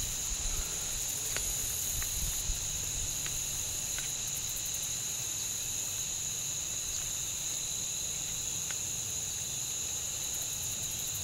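Continuous high-pitched insect chorus holding two steady pitches, with a faint low rumble underneath.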